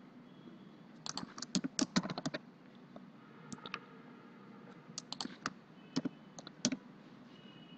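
Keystrokes on a computer keyboard in several short runs of rapid taps, with pauses between them.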